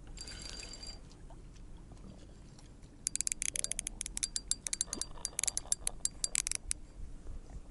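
Fixed-spool feeder reel clicking rapidly in quick irregular runs as a hand works its spool, starting about three seconds in and lasting nearly four seconds.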